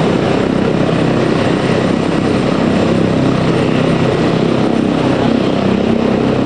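Helicopter running steadily at close range: a loud, even drone of engine and rotor that does not change.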